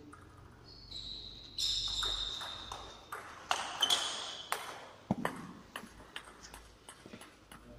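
Table tennis rally: the ball clicks sharply off the rackets and the table in quick succession, with high squeaks of shoes on the wooden floor among the hits. After about five seconds the rally ends and fainter, scattered ball clicks follow.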